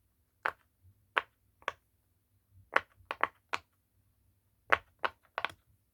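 Silicone pop-it fidget toy's bubbles being pressed through on its noisy side: about a dozen sharp pops at an uneven pace, some singly and some in quick pairs or triplets.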